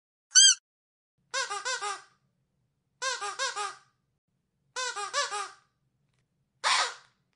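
A dog's squeaky toy squeezed again and again, each squeak rising and falling in pitch. There is one short squeak, then three quick runs of four or five squeaks each, and a last single squeak near the end.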